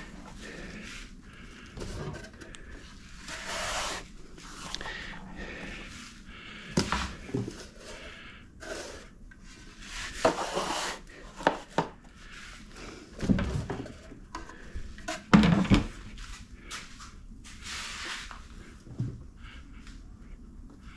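A hand scoop digging and scraping through foundry molding sand in a plastic bucket, in irregular bouts, with several sharp knocks, the loudest about two-thirds of the way through.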